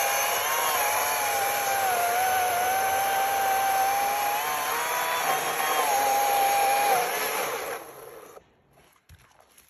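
Atlas 80-volt battery chainsaw cutting through a log round, its electric motor whine wavering and dipping in pitch as the chain works under load. About seven seconds in the saw is released and the motor winds down.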